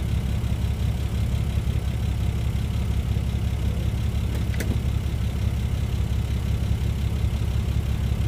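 Off-road 4x4's engine idling steadily, a low even rumble.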